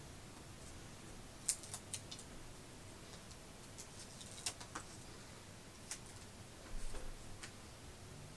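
Faint, scattered crackles and ticks of a sticker's paper backing being peeled off and handled between the fingers.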